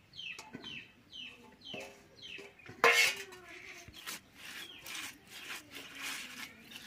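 Small raw fish tipped out of a steel bowl and pushed about by hand on the ground: soft clicks and rustles, with one loud clatter about three seconds in. Chickens call in the background, a string of short falling chirps over the first two seconds.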